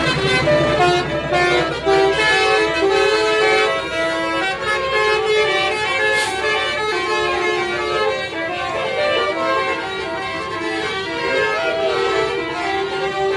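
Telolet basuri bus horn playing a tune: a fast run of short, chord-like horn notes stepping up and down in pitch.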